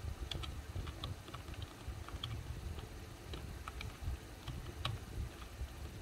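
Typing on a backlit computer keyboard: irregular clicks of keystrokes, a few a second, over a low rumble.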